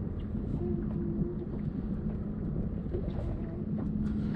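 Steady low motor rumble with a constant low hum, and a brief higher tone about a second in.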